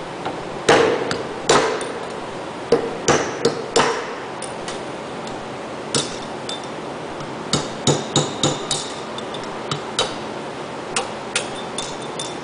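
Hammer striking a small punch to drive a mechanical seal's stationary ring out of a centrifugal pump's stuffing box. It makes an irregular series of sharp metallic taps in short clusters, some of them ringing.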